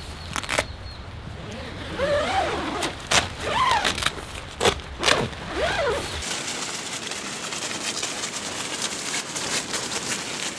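A camping shelter being pitched: its fabric rustling, with many sharp clicks and knocks from its fittings being handled, and a few short vocal sounds about two and five seconds in. A low rumble drops away about six seconds in.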